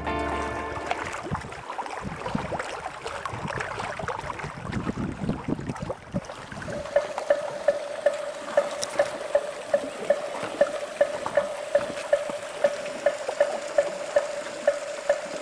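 Music fading out, then rustling and brushing noise of the handheld camera pushing through scrub. About seven seconds in, a music cue begins: a held tone with a sharp tick about twice a second.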